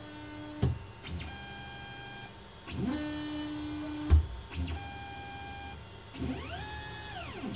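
VzBoT 3D printer's stepper motors whining through fast toolhead moves in an acceleration speed test. Each move rises in pitch, holds a steady tone, then falls. Sharp knocks come at some direction changes, the loudest about four seconds in.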